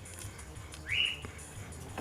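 A single short whistled note about a second in, rising in pitch and then held briefly, over a faint low steady hum.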